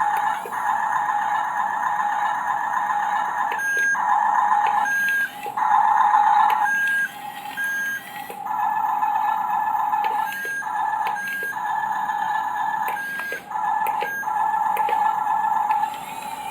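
Toy bulldozer giving off a steady electronic whine with short beeps breaking in, stopping and starting several times.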